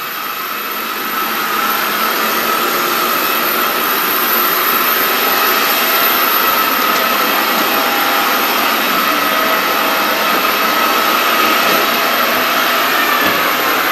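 Jet turbine noise from the parked Airbus A319: a steady high whine over a loud rushing hiss, swelling over the first couple of seconds and then holding.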